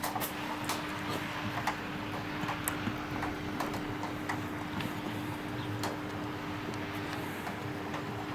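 Steady rushing noise of blizzard wind, with a faint steady hum underneath and scattered light clicks and knocks.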